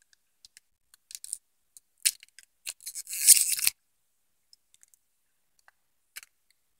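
Plastic snack wrapper crinkling and crackling as it is handled: scattered sharp crackles, a longer crinkly burst about three seconds in, then a few faint ticks near the end.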